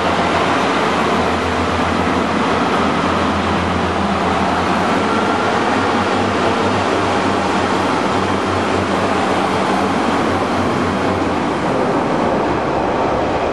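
Diesel multiple unit moving past along the platform, loud and steady: its underfloor engine running under the noise of the train, with the low engine note fading away near the end.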